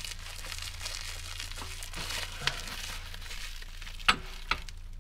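Plastic wrap on a fresh air exhaust pipe crinkling as the pipe is handled and slipped onto a boat's exhaust port, with two sharp knocks close together near the end.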